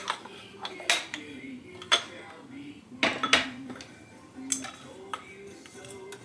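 Clinks and knocks of small glass spice jars with bamboo lids and a measuring spoon being handled at the stove, about half a dozen sharp taps with the loudest pair about three seconds in, over background music.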